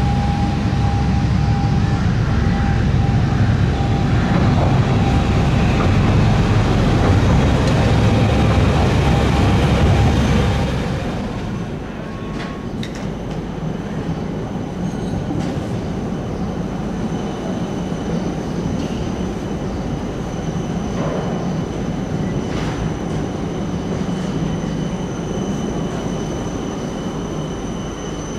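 Electric trams running on their rails. For the first ten seconds or so there is a loud low rumble with a steady whine; then it cuts to a quieter passing tram, its wheels rumbling on the track, with two steady high-pitched whines.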